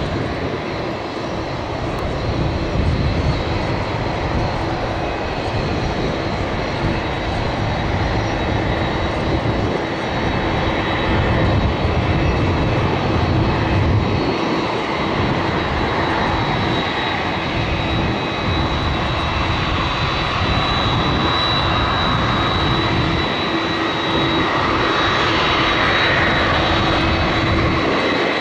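Jet engines of a Boeing 767-300ER airliner on its landing: a steady, loud roar with a high-pitched whine that grows stronger in the second half.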